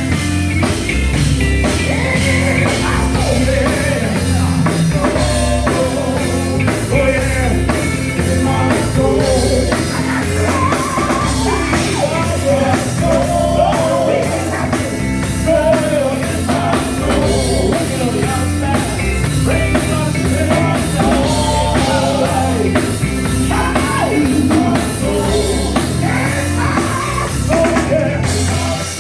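Gospel band playing an upbeat number on drum kit and guitar, with singing over it.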